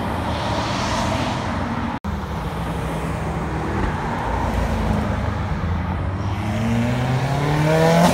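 Cars driving past one after another at low speed, with engines running steadily and a brief dropout about two seconds in. Midway a Chevrolet Corvette C8's V8 is heard. Near the end a Subaru WRX's turbocharged flat-four rises in pitch as it approaches, then drops as it passes close by.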